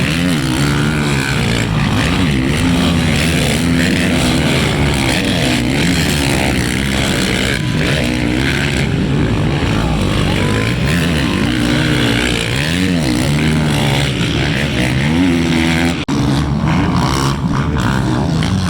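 Motocross bike engines revving up and down, several overlapping at once, over a steady background rush.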